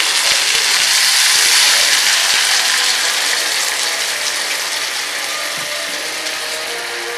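Coconut milk being poured into a hot frying pan around fried fish, sizzling hard as it hits the hot oil; the sizzle is strongest a second or two in and then slowly dies down.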